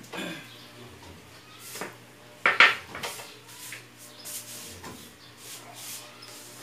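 Plates and bowls clinking and knocking as they are taken out of a refrigerator and set down on a table: a handful of scattered knocks, the loudest about two and a half seconds in.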